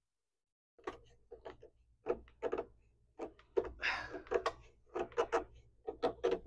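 A run of short, irregular knocks and clicks, about two a second, from the parts of a rusted miter saw being worked by hand. It starts suddenly about a second in.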